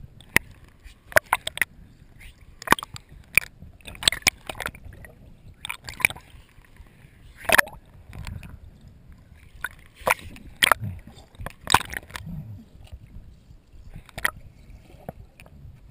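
Water sloshing and gurgling around a waterproof action-camera housing held half-submerged beside a swimming dog, muffled, with irregular sharp clicks and splashes as the water and the dog's paddling hit the housing.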